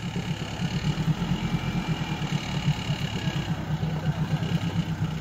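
Off-road 4x4's engine running steadily at low speed, a low, evenly pulsing throb.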